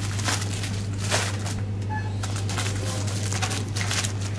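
Rustling and crinkling of plastic packaging being handled, in several short bursts, over a steady low hum. A faint short beep comes about two seconds in.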